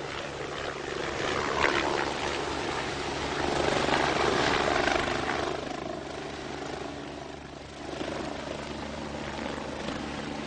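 Rescue helicopter flying overhead and away, a steady rotor and turbine drone that swells about four seconds in, eases off, then picks up again near the end.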